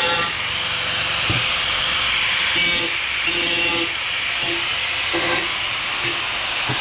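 Power saw cutting through metal square tubing, a loud steady grinding hiss of blade on metal.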